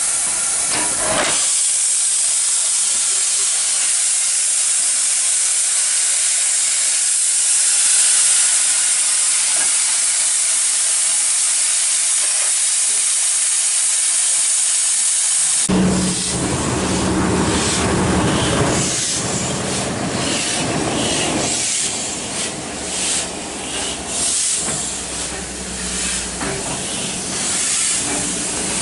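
Steam locomotive, a USATC S160 2-8-0, venting steam in a loud, steady hiss. About halfway through the hiss stops abruptly, giving way to a lower, uneven rumble with irregular knocks.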